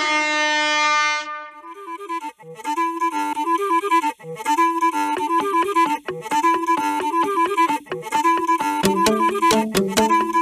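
Background instrumental music: a light stepping melody, joined about nine seconds in by a lower bass part and a clicking beat. It opens under a loud held horn-like tone that cuts off about a second in.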